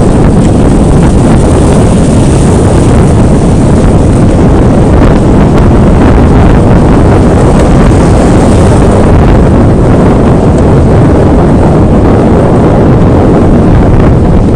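Off-road vehicle driving, heard as a loud, steady rumble heavily mixed with wind buffeting on the microphone.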